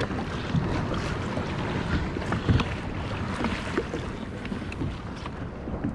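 Wind buffeting the microphone over water lapping against a kayak, with a few light knocks and clicks.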